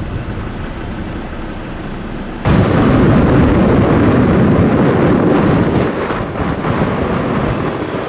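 Vehicle driving on a gravel road, with heavy wind rumbling on the microphone. The roar starts abruptly and loud about two and a half seconds in, after a quieter steady rumble, and eases a little near the end.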